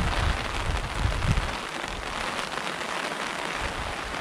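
Steady rain falling on a shallow river, an even hiss throughout. A low rumble on the microphone during the first second and a half.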